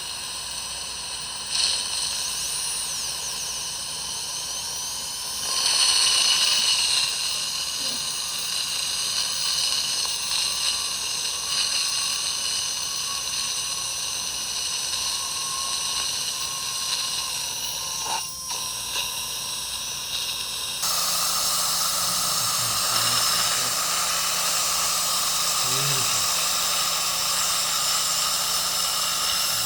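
Dental drill handpiece running with a steady high whine and hiss. About two-thirds of the way in, a louder, rougher hiss joins it.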